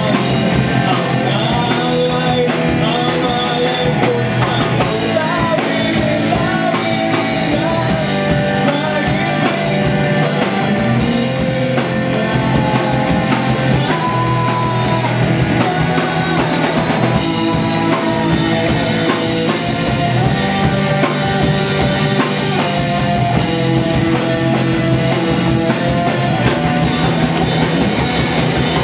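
Live rock band playing loudly: a drum kit and amplified instruments, with a singer's voice.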